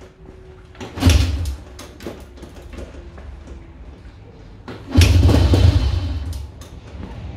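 Two kick-starts, about four seconds apart, on a Honda Dream 100's single-cylinder four-stroke engine, each a mechanical clunk of the kick-starter and a short burst of cranking; the second runs on for about a second and a half. The bike has been refusing to start.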